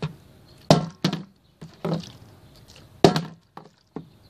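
Plastic juice bottle being flipped and landing on wooden deck boards: a string of sharp knocks, the loudest at the start, just under a second in and about three seconds in, with a few lighter taps between them and near the end.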